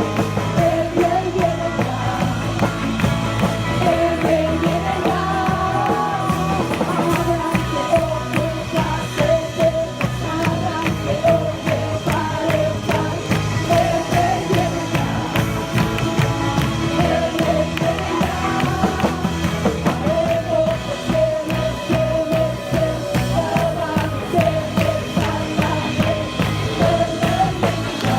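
Rock-style music with a singing voice over a steady beat.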